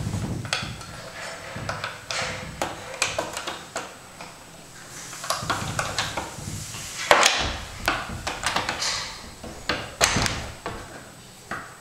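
Pocket door sliding in and out of its wall pocket on its track, with rumbling from the slide and a run of clicks and knocks from the door hardware and the door meeting the jamb. The two loudest knocks come about seven and ten seconds in.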